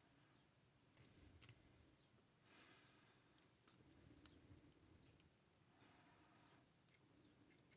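Near silence broken by a few faint, scattered clicks and soft rustles: a folding utility knife's frame lock and thumb stud being worked by hand.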